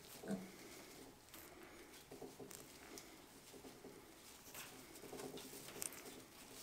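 A day-old piglet giving a few faint, soft grunts and squeaks while it is held, over quiet room tone.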